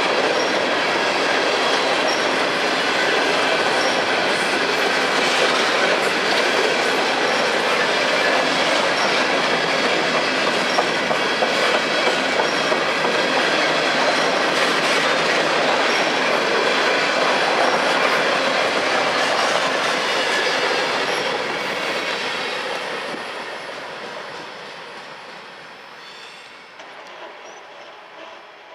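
Freight train cars rolling past: wheels clacking over the rails with some high wheel squeal. The sound is steady, then fades away from about 21 seconds in as the train moves off.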